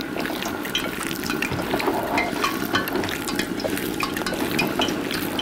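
Water at a boil in a frying pan as broccoli, cauliflower and carrot pieces blanch in it: a steady bubbling with many small pops.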